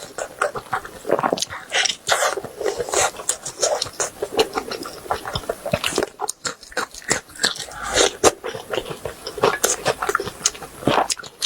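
Close-miked eating sounds of a person chewing grilled beef rib meat: irregular wet smacking clicks and gnawing, mouth-on-meat noises throughout.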